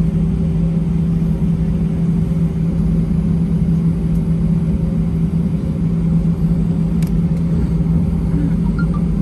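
Steady cabin hum of an Airbus A320-200 after landing, with a constant low drone and a fainter higher tone. There is a faint click about seven seconds in.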